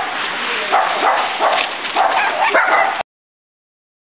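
A dog barking a few times over the rustle of dry leaves, cut off abruptly about three seconds in, followed by silence.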